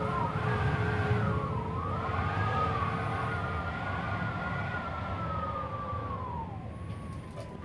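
Hurricane-force wind howling around roll-down storm shutters and sliding glass doors: a high, wavering whistle that rises and falls over a deep, steady rumble. The whistle sinks and fades near the end.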